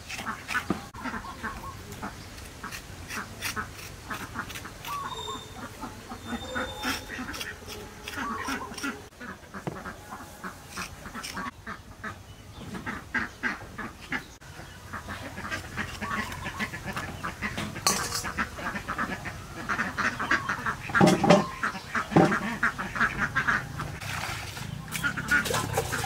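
Ducks quacking on and off, with two loudest calls late on, over the quick, repeated scraping strokes of a hand peeler on a green fruit.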